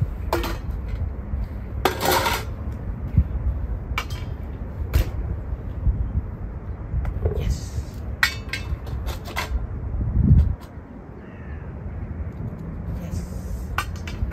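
Scattered clinks, taps and short clatters of dog food bowls being handled as treats go in, one longer clatter about two seconds in. Underneath runs a steady low rumble that eases off about two-thirds of the way through.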